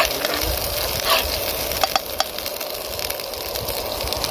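Chopped onions and green chillies frying in oil in a pan, a steady sizzle, with a metal spoon scraping across the pan a few times in the first half.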